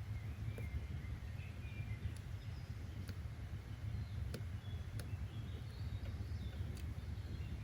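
Steady low outdoor rumble of ambient noise with faint birds chirping now and then, and a few light ticks scattered through.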